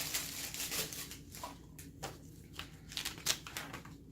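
Paper rustling as the pages of an instruction manual are handled and turned: a run of short dry crackles and flutters, with a sharper snap a little after three seconds in.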